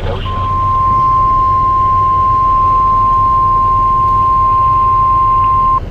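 NOAA Weather Radio 1050 Hz warning alarm tone, played through a receiver's speaker: one loud, steady single-pitch tone held for about five and a half seconds, then cut off. It signals that a warning-level alert follows.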